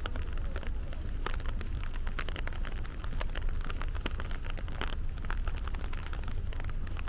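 Heavy rain falling, with many separate drops striking close by as sharp ticks over a steady low rumble.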